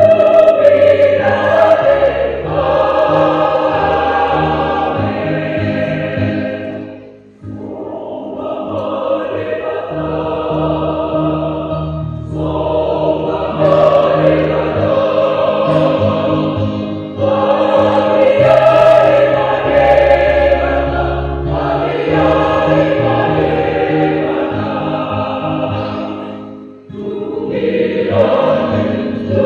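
Mixed church choir singing a hymn in long sustained phrases, pausing briefly about seven seconds in and again a couple of seconds before the end.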